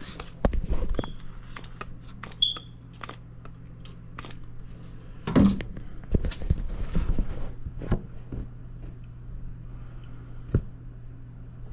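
Scattered clicks and knocks of hands and tools working on equipment over a steady low hum, with a brief high chirp about two and a half seconds in.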